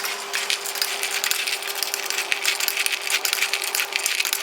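Fried crispy macaroni rattling and clicking as it is tossed with chilli powder: a dense, continuous clatter of hard, dry pasta pieces.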